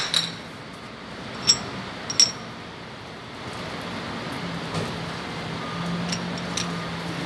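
Metal parts clinking as a coil spring and shock absorber are handled and fitted together: two sharp, ringing clinks in the first few seconds, then a few lighter taps near the end, over a steady low hum.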